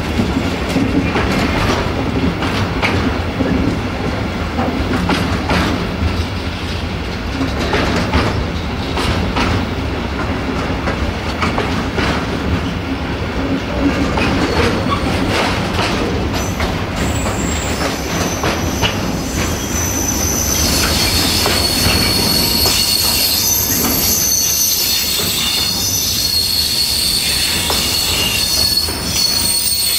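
Container wagons of a freight train rolling past, wheels clattering over the rail joints. Past the middle a high-pitched metallic squeal sets in and carries on over the rolling noise.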